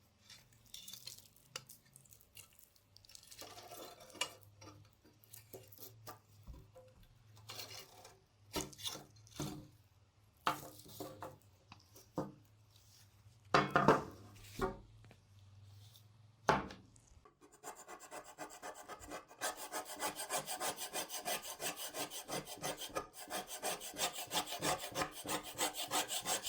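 Scattered handling clicks and knocks, then, about two-thirds of the way in, a hand tool rasping back and forth against the workpiece in quick, even strokes, several a second.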